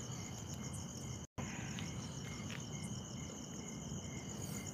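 Crickets and other night insects chirping steadily: a fast pulsing high trill together with a lower chirp repeating about twice a second. The sound cuts out completely for an instant about a second in.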